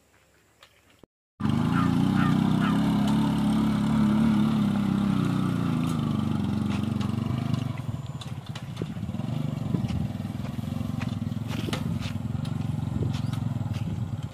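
Bajaj Boxer 100 cc single-cylinder motorcycle engine pulling a trailer loaded with manure, running steadily along a dirt field track. It comes in suddenly about a second and a half in, after a moment of near silence, and grows a little fainter in the second half as the rig moves away.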